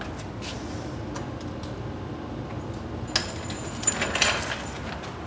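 Metal clinking and rattling, like hand tools or loose steel parts being handled: a few light clicks, then a cluster of ringing clinks about three seconds in, over a low steady hum.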